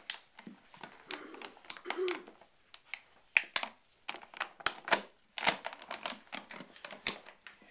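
A dog rummaging and pawing about: a quick, irregular run of clicks and crinkles, like claws and paper or plastic being worked at.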